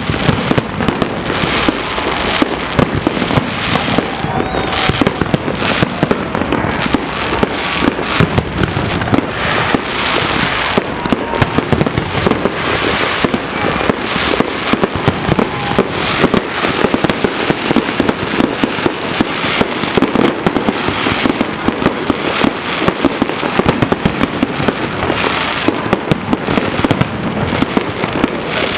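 A fireworks display in full barrage: aerial shells bursting in a dense, continuous run of bangs and crackles with no real pause.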